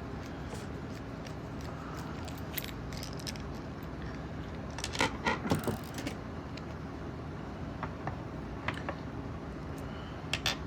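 Metal clinks and rattles from two American 1100 padlocks and lock picks being handled: scattered light clicks, a cluster of loud clinks about five seconds in and two more near the end, over a steady low hum.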